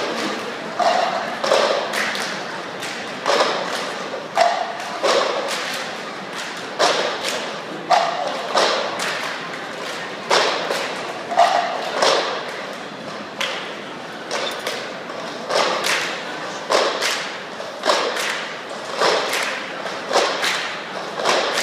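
A group of performers beating out a percussion pattern of thuds and slaps, about one or two hits a second, in a large hard-walled hall, over crowd murmur.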